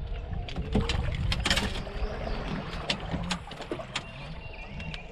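Knocks and clatter of gear being handled on an aluminium jon boat's deck, a quick run of sharp clicks loudest about a second and a half in, over a steady low rumble.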